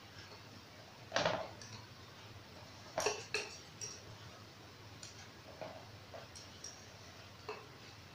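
Scattered small, sharp clicks and clacks of a mini air pump's clip-on valve chuck and hose being handled and fitted to an inner tube's valve, the loudest about a second and three seconds in.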